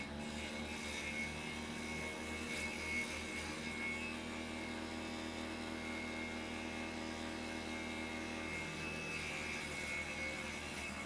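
Homemade vegetable chopper, a water-pump electric motor spinning a grass-cutter blade, running at a steady speed with an even hum.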